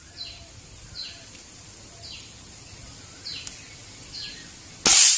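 A Precihole NX200 Athena break-barrel spring-piston air rifle fires once near the end: a single loud, sharp report. Before it, a bird repeats a short falling chirp about once a second.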